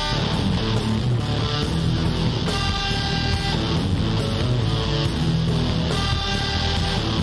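Instrumental blues-rock background music led by electric guitar, with a steady beat.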